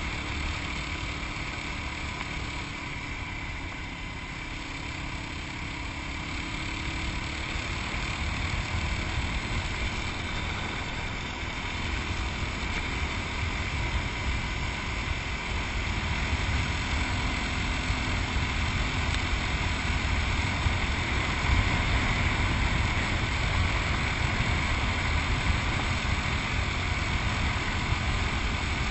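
Yamaha WR250X's single-cylinder four-stroke engine running while the motorcycle is ridden, with a steady rushing noise over it; it gets gradually louder in the first half and then holds.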